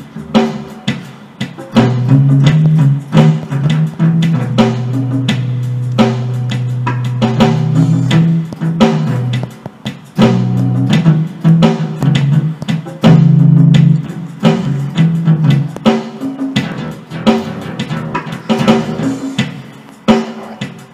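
Synthesizer and keyboard music with long held bass notes over a steady drum beat.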